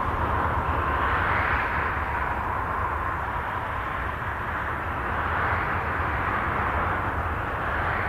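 Voyager 2's data from Uranus converted to sound: a continuous rushing, whooshing drone over a low rumble. It swells and fades slowly, louder about a second and a half in and again around the middle, with a faint steady tone at the very start.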